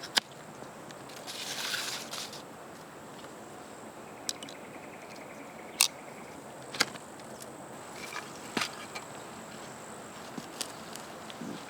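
Sticks and branches of a bush shelter being handled: a rustling patch early, then scattered sharp clicks and knocks now and then. A steady high whine runs underneath.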